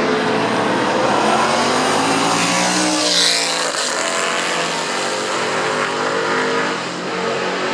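A classic Can-Am sports-racing car's big engine running hard as it passes at speed, its pitch climbing and then dropping about three seconds in.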